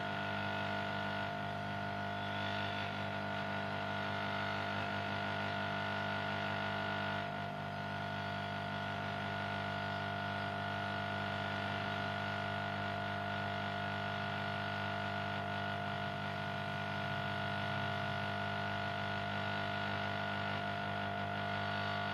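Maruti Wagon R K-series petrol engine idling steadily, a constant hum of fixed tones with a brief dip about seven seconds in.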